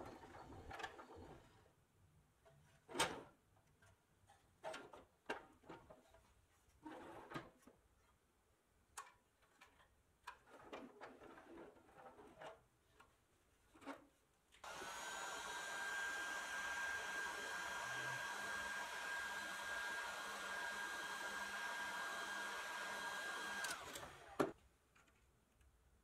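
A pressed-steel toy fire truck rolled and handled on a wooden bench: scattered light knocks, clicks and rattles. About halfway in a loud, steady hiss with a high whistling tone starts suddenly, runs about nine seconds and cuts off abruptly.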